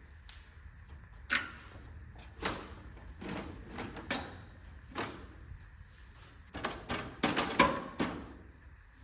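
Irregular knocks and clunks of parts being handled and fitted while a garden tractor's grille is installed, with several sharp strikes close together near the end.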